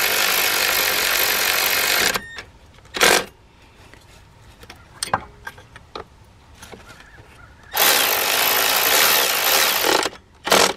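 Power driver spinning in the throttle body's Torx bolts in bursts. It runs for about two seconds and stops, gives a short blip about three seconds in, and after a quieter stretch with light tool clicks runs again for about two seconds, then gives a final short blip near the end.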